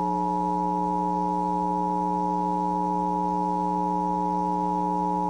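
Emergency Alert System two-tone attention signal, the 853 Hz and 960 Hz tones sounding together, steady and unbroken, over a constant low hum.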